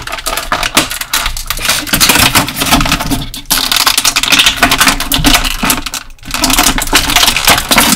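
Plastic packaging and a small plastic action-figure accessory being handled: a dense, continuous run of crinkling and clicking, with two short pauses.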